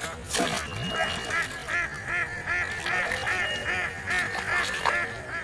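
Waterfowl calling in a quick run of honks, about two or three a second. A brief falling swish comes in the first second.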